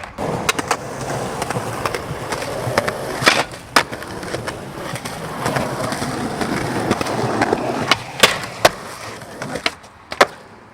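Skateboard wheels rolling steadily, broken by sharp clacks of the board popping and landing, two pairs of them a few seconds apart and one more near the end after the rolling dies away.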